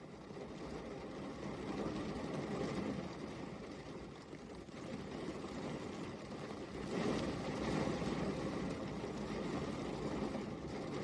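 Rain falling steadily, an even hiss that swells and eases, getting louder about seven seconds in.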